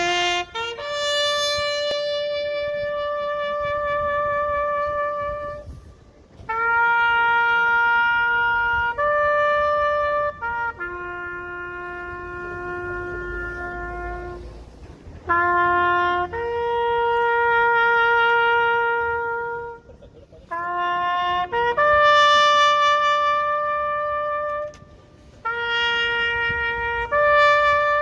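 Solo trumpet playing a slow tune of long held notes, each note steady and separated by short breaks.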